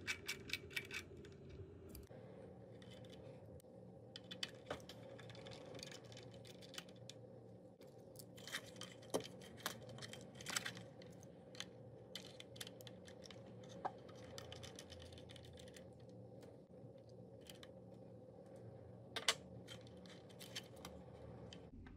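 Faint, scattered clicks and ticks of a small Torx screwdriver and the plastic and metal hinge parts of a DJI Mini 4 Pro's front frame arm being handled, as the arm-shaft screws are undone and the arm is worked. A few sharper clicks come around the middle and one near the end.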